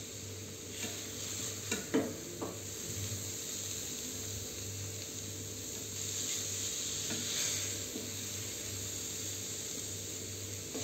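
Spatula scraping and scooping grated-carrot halwa in a metal pan, with a few light knocks about one and two seconds in, over a steady hiss.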